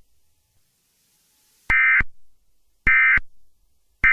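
Emergency Alert System end-of-message signal: short identical bursts of digital data tones, one about every 1.2 seconds, marking the close of the alert. Two full bursts play, and a third begins right at the end.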